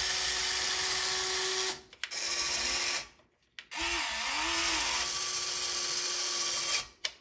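The electric motors and metal worm gears of a Diecast Masters 1:20 CAT 330D L RC excavator whir as the arm and bucket move. The whine stops and starts twice, about 2 and 3 seconds in. In the last, longest run the pitch dips and rises, and it stops near the end.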